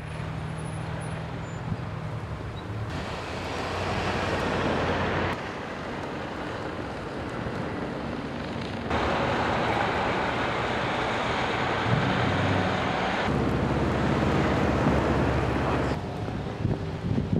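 Vehicle engines and road noise with wind rushing on the microphone. The sound changes abruptly every few seconds, like short clips cut together.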